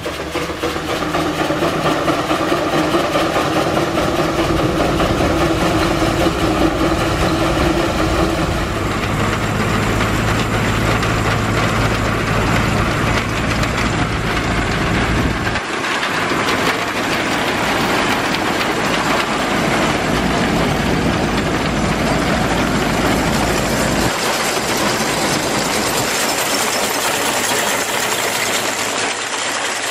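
1911 Case grain separator (threshing machine) running under belt power: the steady mechanical din of its drive belts, pulleys, sprocket chains and moving parts working through oat bundles. The sound shifts abruptly three times.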